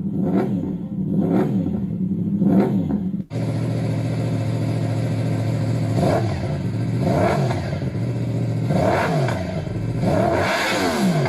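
Recording of a Yamaha YZF-R1M's crossplane inline-four engine being revved in repeated blips, its pitch rising and falling with each one. About three seconds in it cuts to a second recording of the engine running, revved again several times.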